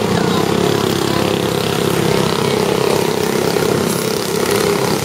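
A pack of flathead go-kart engines racing together, their sound merged into one steady drone.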